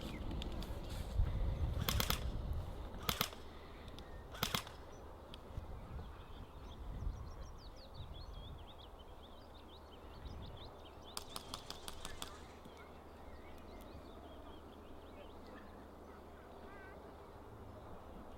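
Airsoft rifles firing short rapid bursts of BBs, three brief bursts in the first few seconds and a longer full-auto burst about eleven seconds in. Birds sing faintly in between.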